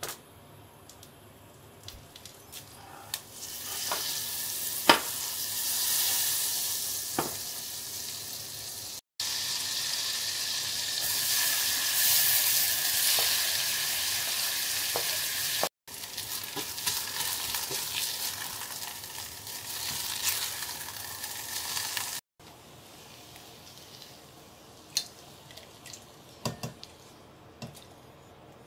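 Butter and sliced new onions sizzling and frying in a small stainless steel saucepan, with a few sharp taps of a utensil against the pot. The sizzle stops near the end, leaving a few light clinks.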